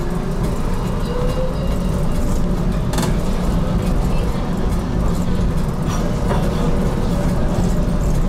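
Inside a moving HTM GTL8 tram: a steady running rumble of wheels on rails and drive noise, with a single sharp click about three seconds in.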